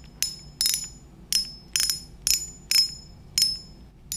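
Drag clicker of a Banax Agron 2500 spinning reel ringing out in short metallic bursts as line is tugged off the spool, about two tugs a second. The drag sounds loud again with a clicker made from an old spoon, after a broken clicker had left it silent.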